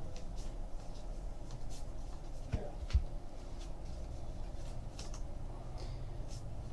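Trading cards being handled and slid through the hands, faint scattered rustles and ticks, with two low thumps about two and a half and three seconds in, over a steady low hum.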